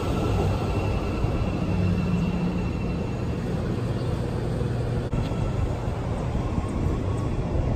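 CTA 5000-series rapid transit train pulling out of an elevated station, its cars rumbling past on the rails, with a faint whine that fades after about three seconds as the last car moves away.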